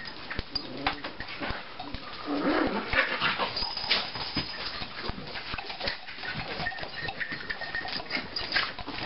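Small dogs, Chihuahuas, play-fighting on a couch: short, irregular dog sounds mixed with scuffling and rustling, livelier in the middle.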